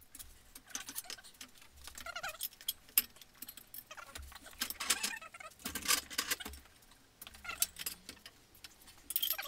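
Busy clatter of hand tools and a steel engine hoist being handled: irregular clinks, knocks and rattles, with a few short squeaks.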